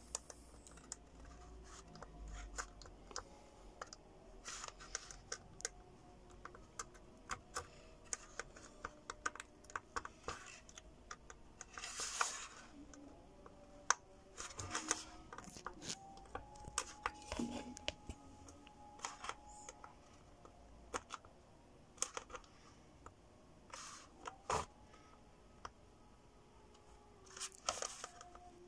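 Multimeter probe tips tapping and scraping on the LED board of an opened LED floodlight as each LED is tested in turn: quiet, scattered light clicks and short scratches at an irregular pace.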